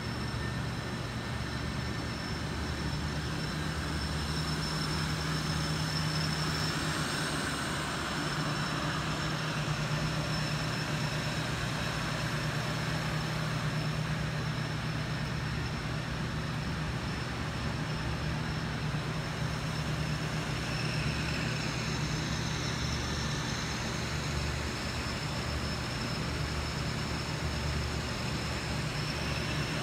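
Steady mechanical drone with an electrical hum and a faint high-pitched whine, unchanging throughout, like ventilation or a running machine.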